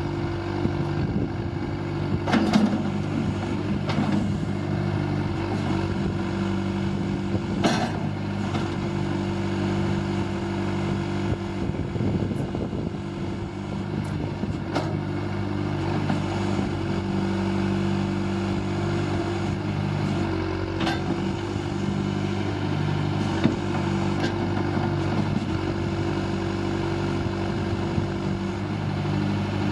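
John Deere 410D loader backhoe's diesel engine running at a steady speed, with a few sharp metallic knocks scattered through it.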